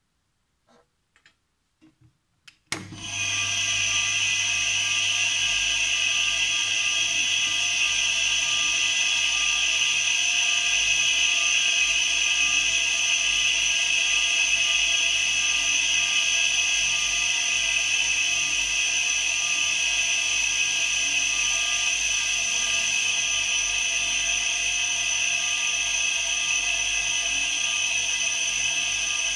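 A home-built air compressor of eight refrigerator compressors starts up about three seconds in and runs steadily, a low hum under a high hiss, pumping air into its 50-litre tank as the pressure builds.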